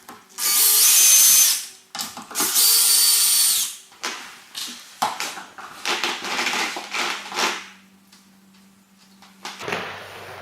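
Cordless drill-driver running in two short bursts, backing out the screws of a door strike plate, followed by quieter handling noises.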